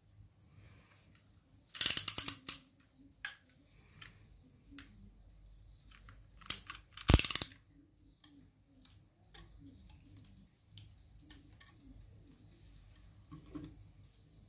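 Snap-off utility knife's blade being slid out: two quick runs of ratchet clicks, about two seconds in and again around seven seconds in. Faint scattered clicks from handling the plastic vape pod follow.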